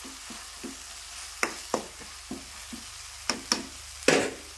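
Metal spoon stirring a green-chilli, tomato and onion masala frying in oil in an aluminium kadai: a steady sizzle with a run of sharp scrapes and knocks of the spoon on the pan, the loudest about four seconds in. The chilli paste is being fried in the oil to drive off its raw smell.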